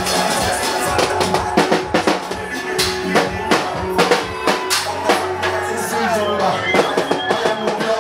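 Dance music with a busy drum-kit part: frequent kick-drum and rimshot hits over sustained pitched instruments, with a voice coming in briefly.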